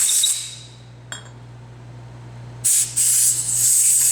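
Two hissing bursts of pressurized spray used to clean the carburetor body's squirter hole and the thread-repair insert: one ends about half a second in, and the other starts near the middle and lasts about two seconds. A light click comes between them.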